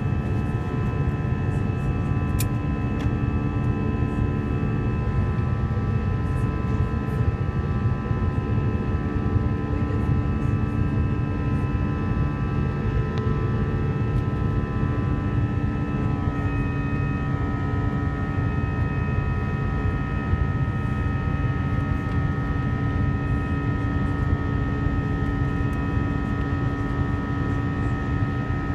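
Airbus A321 cabin noise in flight: a steady rush of engine and airflow noise with several steady whining engine tones, which step slightly lower about sixteen seconds in.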